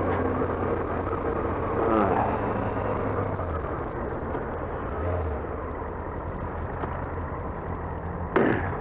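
Yamaha R6 inline-four engine running at a steady road speed, with heavy wind rush on the helmet-mounted mic. A short, louder sound comes in near the end.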